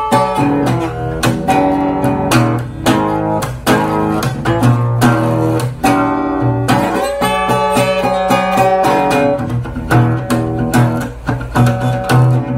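Solo acoustic guitar playing a rock riff, rhythmic strummed chords mixed with picked notes.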